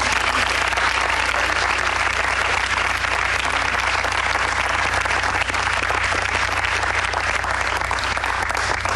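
A room full of people applauding, a dense, even clapping that holds steady throughout.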